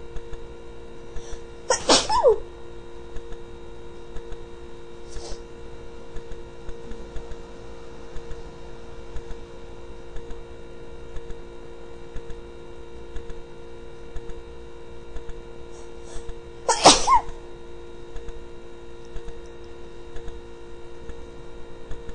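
A person sneezing twice, about fifteen seconds apart, each a loud "achoo" that falls in pitch. Faint ticking and a steady hum run underneath.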